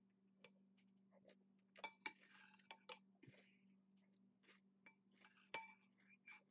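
Faint spoon clinks against a bowl while eating: several light taps, each with a brief ring, and a short scrape about two seconds in. A steady low hum runs underneath.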